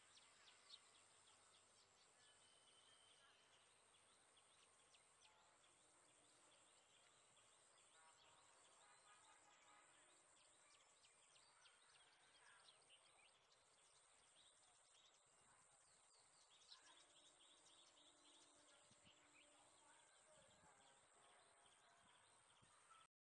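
Very faint outdoor ambience: a steady high-pitched tone broken by short regular gaps, with scattered bird chirps throughout.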